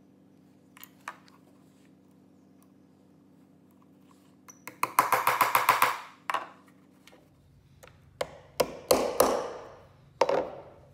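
Small hammer tapping brass pins into holes through a brass plate on a walnut handle. A quick run of light taps lasts about a second, then come single sharper taps, each with a short metallic ring.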